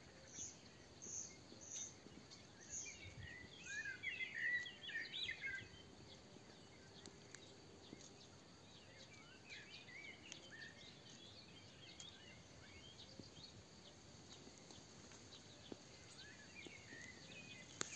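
Faint songbird twittering and chirping over a quiet outdoor background, loudest about four to six seconds in.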